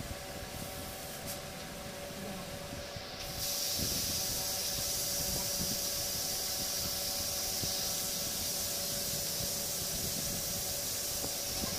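A steady hiss comes in suddenly about three seconds in and holds, over a faint steady hum. Under it are soft sounds of a knife cutting through spinach leaves.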